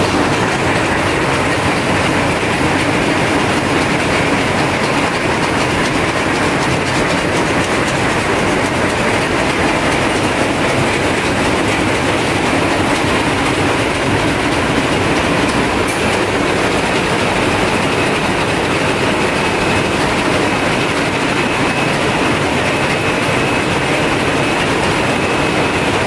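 Picanol GTMAX rapier loom with an electronic jacquard head weaving at speed: a steady, dense mechanical clatter. A faint high-pitched whine joins in during the last third.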